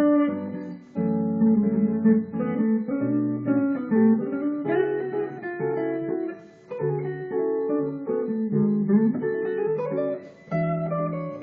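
Hollow-body electric guitar played clean in a jazz improvisation: a run of ringing chords that change about once a second, with a few short breaks between phrases.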